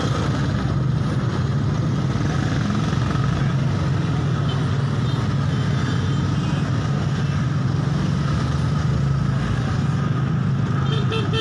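Street traffic: motorcycle and vehicle engines running with a steady low hum. A horn beeps briefly near the end.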